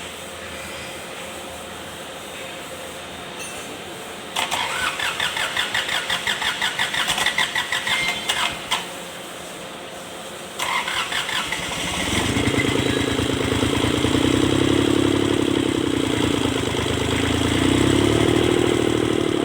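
Kubota D905 three-cylinder diesel cranked by its starter with a rhythmic chug for about four seconds without firing. After a short pause it is cranked again and catches, then runs while revving up and down twice. It is a hard start, put down to lack of fuel and blowby.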